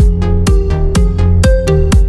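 Background electronic dance music with a steady beat of about two kicks a second under held synth notes.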